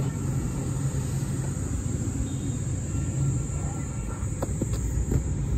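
Steady low rumble with a faint high hiss: outdoor background noise.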